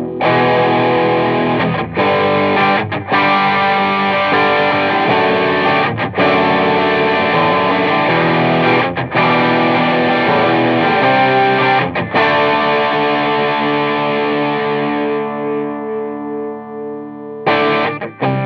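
Electric guitar played through a Digitech Bad Monkey overdrive pedal: distorted chords that ring out, with short breaks between them. A long held chord fades out near the end, and then short, choppy chords begin.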